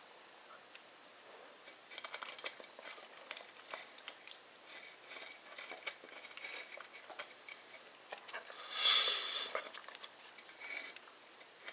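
Airedale terrier puppy gnawing a large bone on a tile floor: teeth clicking and scraping on the bone in quick, irregular ticks, with one louder, longer noise lasting about a second a little past two-thirds of the way through.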